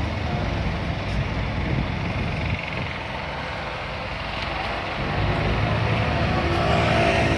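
Road traffic on a busy street: vehicles running and passing, with one engine's rumble growing louder over the last couple of seconds.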